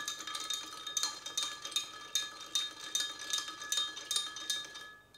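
Bar spoon stirring ice in a measuring jug of spirits, the ice clinking against the sides about two to three times a second; the stirring stops near the end.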